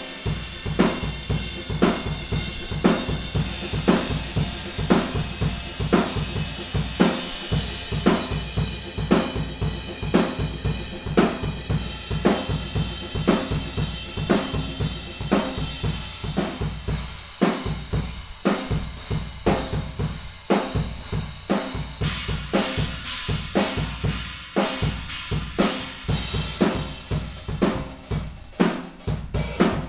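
Drum kit played in a steady groove, with kick drum and snare under ringing Owl Dark series cymbals. The cymbal wash changes about two-thirds of the way through.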